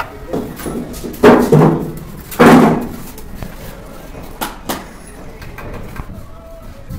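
Bricklaying: bricks and a steel trowel scraping and knocking as bricks are set into cement mortar. There are two loud scrapes in the first three seconds, then a few sharp taps.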